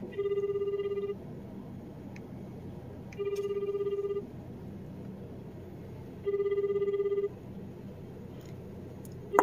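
Telephone ringing tone through a smartphone's speaker: a low warbling beep about a second long, repeating every three seconds, three times. The one-second-on, two-seconds-off warble is the pattern of the Japanese ringback tone, heard while an outgoing call waits to be answered.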